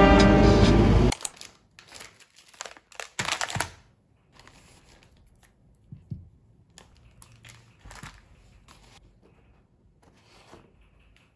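Background music that cuts off about a second in, followed by intermittent crinkling of plastic food packaging and soft handling sounds as packages are set down on a cloth-covered table. The loudest crinkle comes a little past three seconds in.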